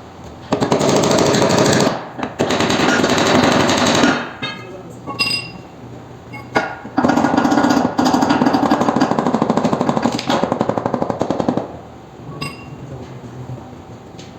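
Power impact tool hammering in four bursts of one to three and a half seconds, each a fast run of blows, with short pauses between them, while a roller coaster wheel assembly is worked on.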